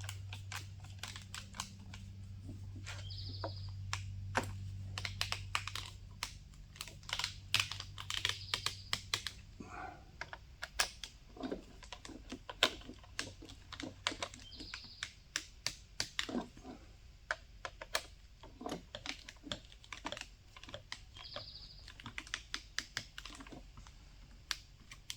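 Irregular runs of sharp clicks from a ratcheting screwdriver and handled hardware as screws are driven to fasten a window motor onto a car window regulator. A low hum fades out about six seconds in.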